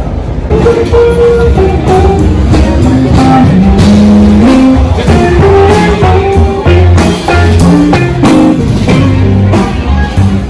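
Music with a bass line, drums and a stepping melody, coming in sharply about half a second in.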